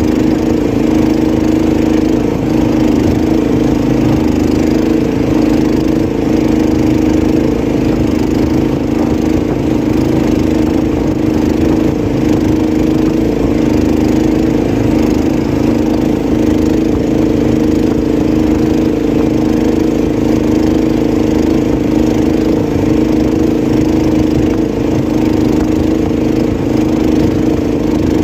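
Small boat engine running steadily at a constant speed.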